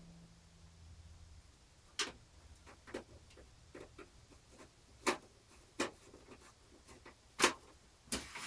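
Screws being driven by hand into a floppy drive in a PC case's drive bay: a string of irregular, sharp clicks and ticks, about eight in all, starting about two seconds in, with the loudest near the end.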